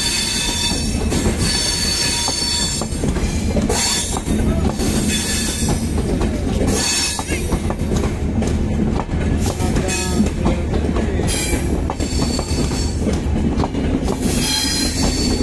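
Benapole Express intercity passenger coaches rolling past on the rails, a steady rumble of wheels and bogies, with high metallic wheel squeals coming and going every second or two.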